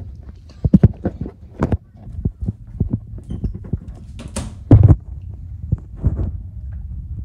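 Irregular thumps of footsteps and a handheld phone being jostled while someone walks. About four and a half seconds in there is one louder clatter as a brass door knob is turned and the door is opened.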